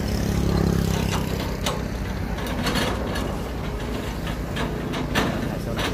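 Diesel engines of two Sumitomo S265 tracked excavators running as they dig mud out of a paddy-field ditch, a steady low hum that is loudest in the first second or so. Several sharp knocks are scattered through it.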